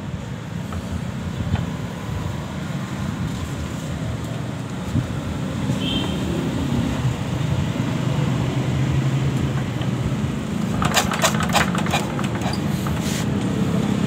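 A small engine running with a steady low hum, and a quick burst of sharp clicks about eleven seconds in.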